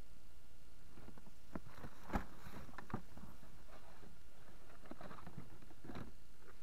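Scattered knocks and light clatter of fishing gear being handled on a plastic kayak, over a steady hiss; the loudest knock comes about two seconds in.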